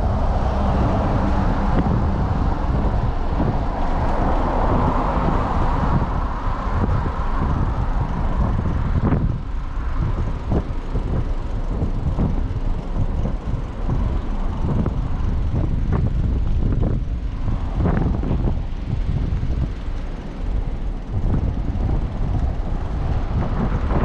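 Wind rumbling and buffeting on the microphone of a camera on a moving bicycle, in irregular gusts, mixed with road noise from cars passing on the highway alongside.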